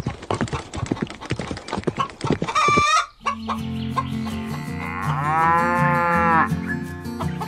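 A cow moo sound effect: one long call, about a second and a half, that rises and then falls in pitch, over background music with steady low notes. Before it, for the first three seconds, comes a busy run of quick clicks and taps with a short higher call, which stops abruptly.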